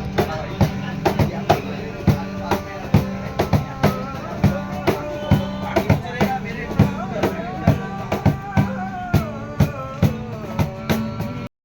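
Music with a steady drum beat of about two hits a second and a wavering melody over a held low tone. It cuts off suddenly near the end.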